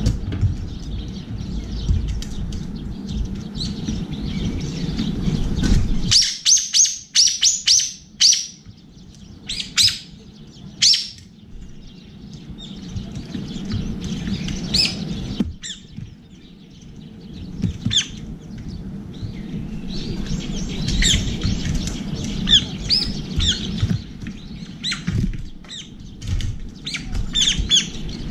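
Brown-eared bulbuls calling: runs of sharp, high chirps about six seconds in and again through the second half. A low rumble under the first few seconds stops abruptly.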